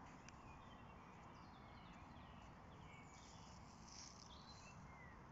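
Faint birdsong: scattered short chirps and whistles from several birds, over a low steady outdoor rumble.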